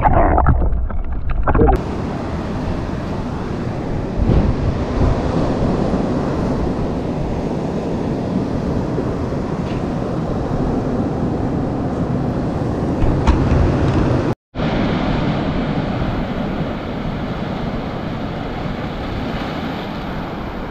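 Sea waves washing on the shore with wind blowing across the microphone: a steady rushing noise that cuts out for an instant about two-thirds of the way through.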